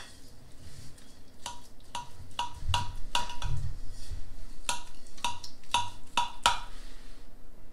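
Metal spatula clinking and scraping against a glass baking dish while cutting through and prying apart cheese-topped slider rolls: a dozen or so sharp, irregular clinks, with a few dull knocks in the middle.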